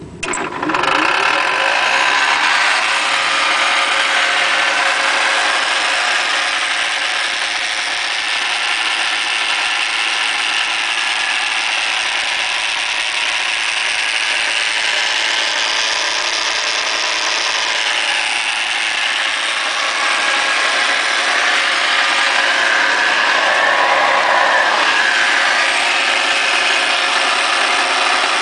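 Vintage Delta jointer-planer switched on, its belt-driven cutterhead and motor running steadily. The tone shifts for a few seconds about two-thirds of the way in.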